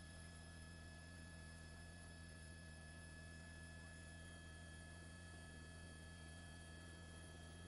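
Near silence: a faint, steady electrical hum with a few constant whining tones, unchanging throughout.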